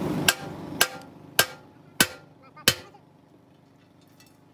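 Five sharp knocks on metal at an even pace, about one every 0.6 seconds, each ringing briefly, as a steady background noise fades out behind them.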